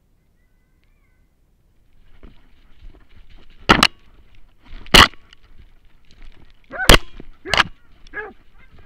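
Hunting dog barking close to the mic: five short, sharp barks after about two seconds of near silence. The later barks have a yelping rise and fall in pitch.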